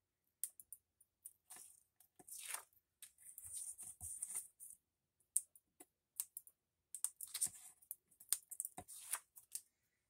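Strips of thin tape being stuck onto a paper card and pressed down by hand, making irregular light taps, clicks and short scratchy rubs of fingers on paper.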